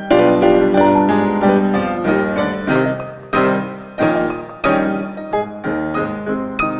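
Two grand pianos playing together live, a classical-style piece of struck chords and running notes that ring out between attacks. A loud chord opens, and strong chords land again a little past the middle.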